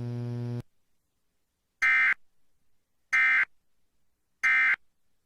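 Emergency Alert System end-of-message signal: three short identical warbling data bursts, each about a third of a second long and about 1.3 seconds apart, marking the end of the alert. Before them a steady electrical hum cuts off abruptly about half a second in.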